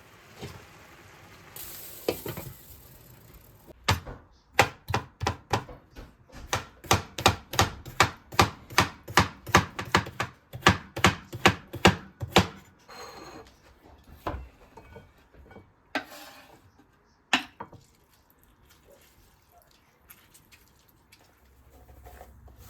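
Chopping with a knife on a cutting board: a steady run of about twenty strokes, two to three a second, with a few separate knocks before and after.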